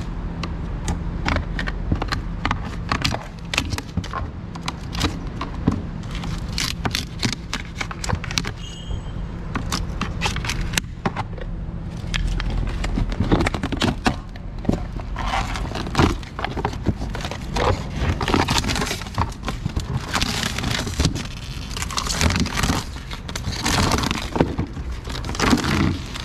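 A skin of cured flexible epoxy, studded with vinyl flakes, being peeled and torn out of a plastic tub: a long run of irregular crackles, scrapes and tearing. A low steady hum runs underneath until about halfway through.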